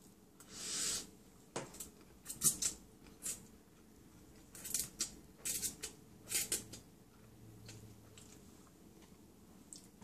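A person slurping ramen noodles off a fork. One longer slurp comes about half a second in, then a string of short wet slurps and clicks while eating.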